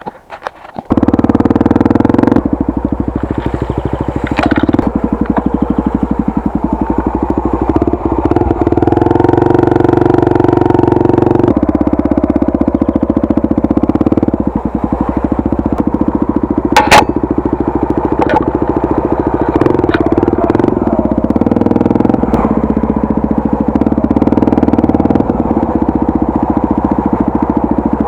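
Honda Tornado 250's single-cylinder four-stroke engine running under way, coming in abruptly about a second in, its pitch and level stepping up and down as the revs change. A sharp knock cuts through once about two-thirds of the way in.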